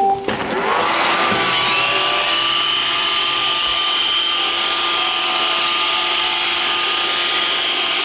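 iRobot Roomba 560 robot vacuum starting a cleaning run: its vacuum and brush motors spin up with a rising whine in the first second or so, then run steadily with a high whine.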